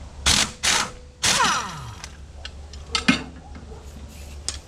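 Pneumatic impact wrench fired in three short bursts on engine mount bolts, the last one spinning down with a falling whine. A couple of sharp metal clicks follow about three seconds in.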